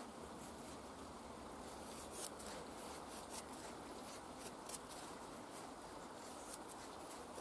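Faint, irregular short scrapes and clicks of a Victorinox Hunter knife blade shaving small feather curls from a wooden stick, over a steady low background hiss.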